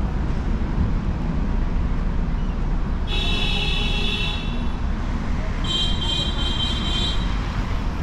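Steady city street traffic rumble, with two high-pitched tones, each about a second and a half long, about three and about six seconds in.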